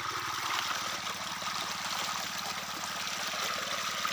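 Water gushing steadily out of a pump's outlet pipe and splashing into an irrigation ditch, with the petrol engine driving the pump running steadily underneath.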